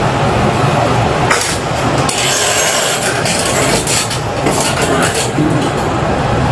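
Steady rumble and hiss of room noise picked up by a police body-worn camera's microphone. From about a second in to about five seconds in there is a stretch of scratchy rustling.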